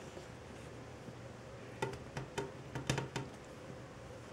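A quick run of about six sharp taps or clicks near the middle, some ringing briefly, over a faint steady hum.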